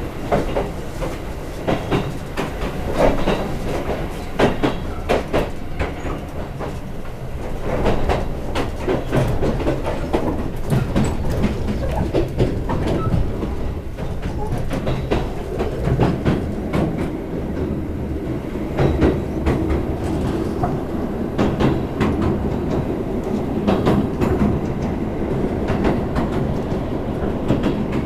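Chichibu Railway express train running at speed, heard from inside the passenger car. A steady low rumble is broken by the clickety-clack of the wheels passing over rail joints, coming as many sharp irregular clicks.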